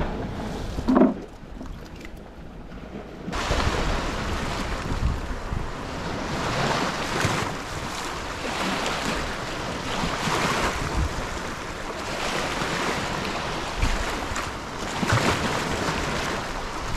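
Waves washing on the shore, mixed with wind rumbling on the microphone; the noise jumps up suddenly about three seconds in and then swells and ebbs every second or two. A brief pitched sound stands out about a second in.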